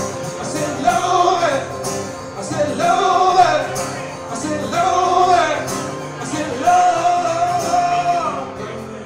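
Live acoustic guitar and male vocal: the guitar is strummed steadily under four long sung notes, and the last note is held the longest.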